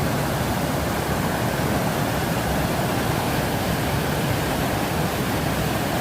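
Loud, steady rush of a river pouring down a series of cascading waterfalls, a constant roar of white water.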